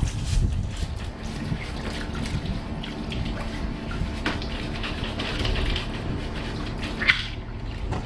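Water from a hose running and splashing onto a bicycle's rear wheel and drivetrain as it is scrubbed with a sponge. A single sharp knock about seven seconds in.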